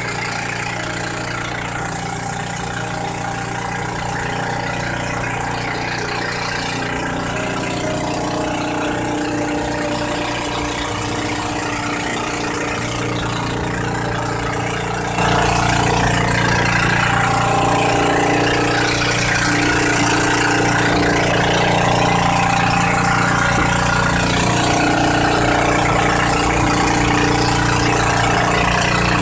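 Outrigger boat's (bangka) engine running steadily under way, stepping up louder about halfway through.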